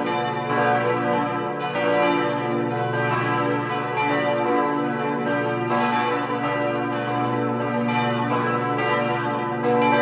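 Four church bells cast in 1949 by Petit & Edelbrock ringing together, their strikes overlapping and each leaving a long ring. It is a partial peal on the notes B, D, F-sharp and A: the E bell is left out because it has no clapper.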